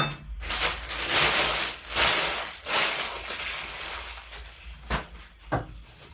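Crinkling and rustling of shopping packaging handled in bursts for about five seconds, then two short knocks near the end.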